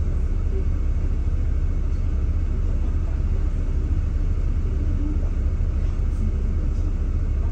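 Steady low rumble of a double-decker bus's engine and body, heard inside the upper deck while the bus creeps forward in queued traffic.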